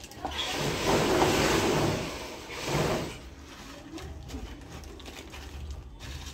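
Crisp fried bhujia sev poured into a plastic bowl, rustling and pattering: one longer pour of about two seconds, then a shorter one a little later.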